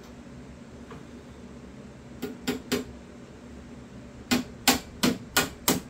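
Hammer tapping small tacks into a wooden box: three quick taps about two seconds in, then a steady run of taps, about three a second, from about four seconds in.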